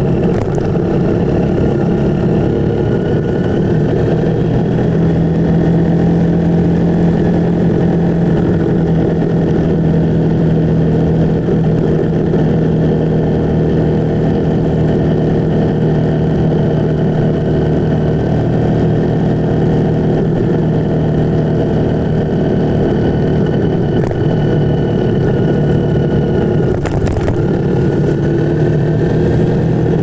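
Motorcycle engine running at a steady, nearly unchanging pitch, heard from the rider's seat.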